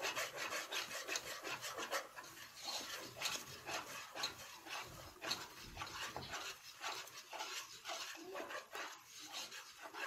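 Wire whisk scraping round a pot of thick flour-and-ghee roux for béchamel, in quick rhythmic strokes.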